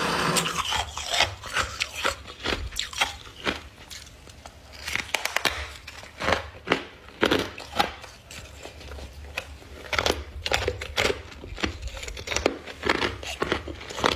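Frost being scraped and crunched close to the microphone: a run of irregular, sharp crunching and rasping strokes.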